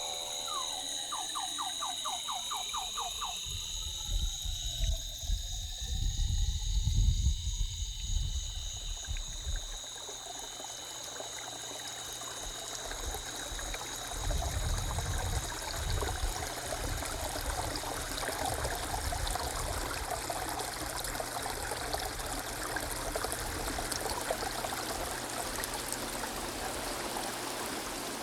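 Steady high electronic tones and sliding pitch glides fade out and give way to an even rushing hiss like a running stream. Low rumbling swells come in about four seconds in and again around fifteen seconds.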